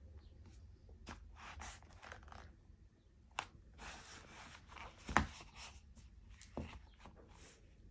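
Worn rubber flip-flops being moved about and stepped on over a hardwood floor: soft scuffing and scraping, broken by a few sharp taps, the loudest about five seconds in.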